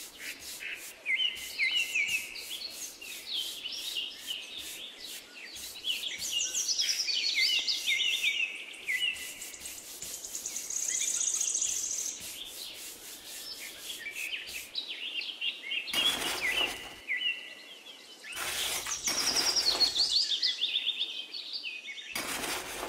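A paintbrush's bristles sweeping sand across a plastic pond liner in short repeated strokes, with birds chirping steadily in the background. Three longer scraping stretches come in the second half, the last near the end as a small trowel scrapes sand over the plastic.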